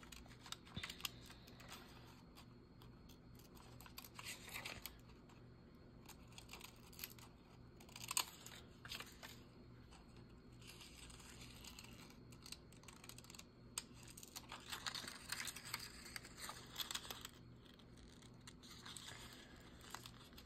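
Small scissors snipping paper in short runs of quick cuts, fussy-cutting around a figure on a paper sewing-pattern cover, with the paper rustling as it is turned. Faint.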